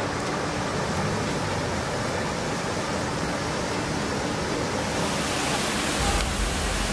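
Muddy flash-flood water rushing through a road culvert and over a low crossing: a steady rushing noise. From about six seconds in it grows louder, with a deeper rumble.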